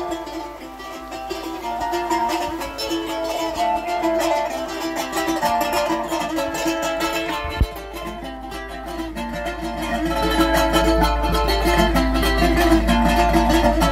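Background music: a brisk tune on plucked strings.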